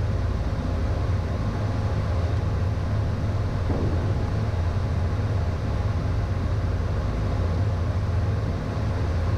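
Steady cockpit noise of a Beechcraft Premier I business jet in flight: a low rumble of airflow and turbofan engines with a faint steady whine, unchanging throughout.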